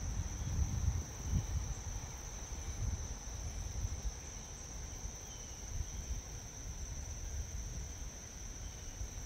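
Insects droning steadily at one high pitch, with an uneven low rumble underneath.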